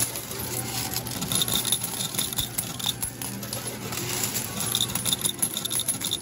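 Metal medals clinking and rattling in a coin-pusher medal game, with short high beeps now and then over a steady low hum.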